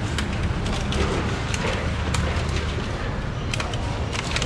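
Clear plastic clamshell fruit boxes being handled and snapped shut, giving a few short clicks and crinkles over a steady low background hum.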